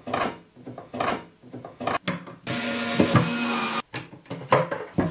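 Wooden flat-pack furniture parts being handled and scraped while metal drawer runner rails are fitted inside a cabinet. A cordless electric screwdriver whirrs steadily for about a second midway, followed by a few knocks.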